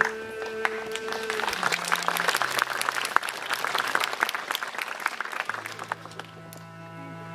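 Audience applauding over live bowed string music, with cello and bass holding long low notes. The clapping thins out and stops about five and a half seconds in, and the strings play on.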